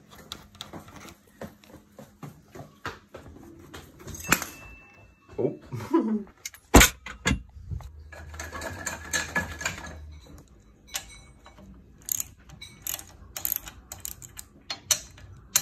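Hand socket ratchet clicking and metal tools clinking as bolts are undone on a pit bike, with one loud knock about seven seconds in and a short stretch of rustling after it.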